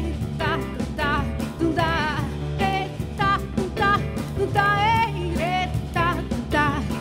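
A woman singing with band accompaniment, her voice wavering and bending through short sung phrases over a steady instrumental backing.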